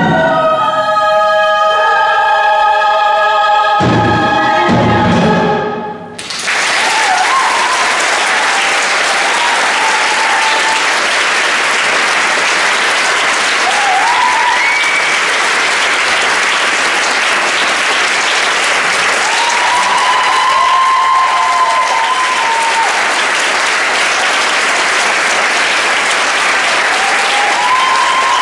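Women's choir, soloists and chamber orchestra sing and play their final bars, the music ending about six seconds in. The audience then breaks into sustained applause, with a few cheers over it.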